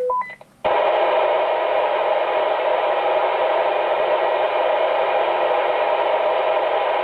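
Two-way radio receiver: a quick rising three-note beep, then about half a second in a loud, steady static hiss bursts from the speaker with the squelch open.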